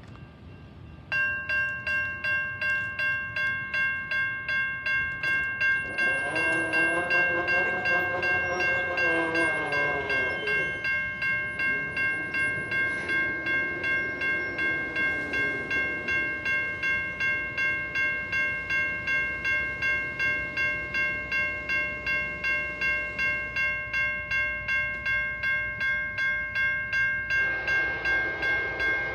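Grade-crossing warning bell ringing steadily, about two strokes a second, with its gates down. Over it, the horn of the approaching Amtrak Piedmont passenger train sounds in the distance: a long blast about six seconds in, a fainter one after it, and another starting near the end.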